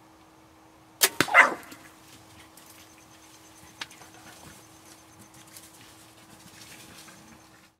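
Bow shot at a javelina: two sharp cracks about a second in, the bow's release and the arrow's hit, then the javelina's short loud squeal. A few faint clicks and rustles follow.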